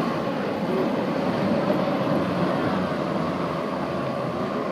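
A New Holland T7070 farm tractor's diesel engine running hard under load as it drags a tractor-pull weight sled. The sound fades slowly as the tractor moves away.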